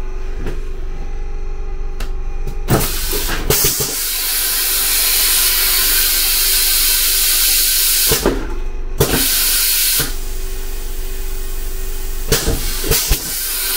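Passenger railcar's vacuum toilet running a flush cycle: a short hiss, then a long rushing hiss of about four seconds, then another rushing hiss from about ten seconds in. Its pneumatic valves click and knock between the hisses. The cycle completes normally.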